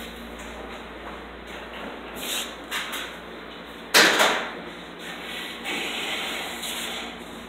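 A single sharp knock on a desk top about four seconds in, with a short ringing tail. Lighter knocks come before it and handling rustle after it.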